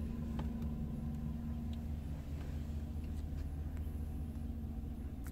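Steady low hum of the Chevrolet Silverado 2500HD's 6.0-litre V8 idling, heard from inside the closed cab.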